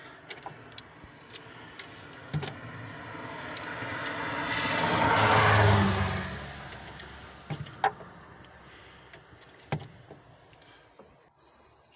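A road vehicle passing by, growing louder to a peak about five to six seconds in and then fading away, with scattered light clicks and knocks.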